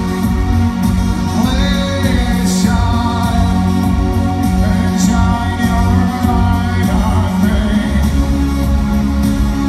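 Live electronic synth-pop music: sustained synthesizer chords over a steady beat, with a male singer's voice coming in twice.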